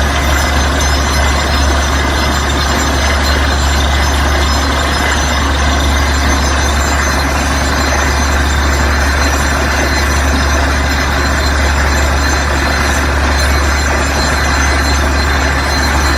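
Small electric motor running steadily and loudly with a constant low hum and a rattling whirr, unchanged throughout.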